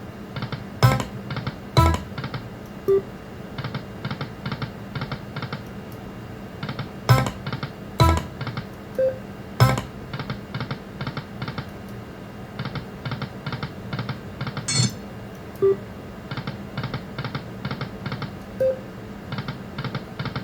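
Lightning Link Best Bet video slot machine's game sounds during repeated spins: runs of rapid electronic ticks as the reels spin, several sharp clicks, and a few short chime tones.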